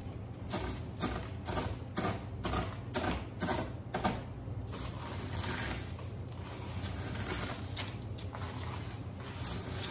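Dry cereal flakes crunched by hand on a plate: crisp crunches about twice a second for the first four seconds, then a denser, steady crackle as the flakes are crushed finer.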